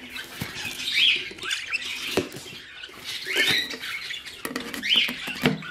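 Caged budgerigars chirping and chattering: short rising-and-falling chirps about every second, with a few sharp clicks in between.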